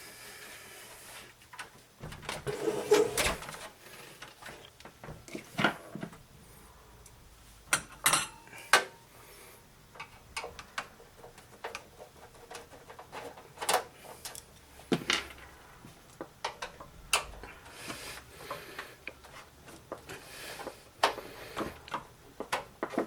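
Scattered clicks, knocks and metallic clatter of hands working inside a desktop computer case, taking out the hard drive and its metal drive cage.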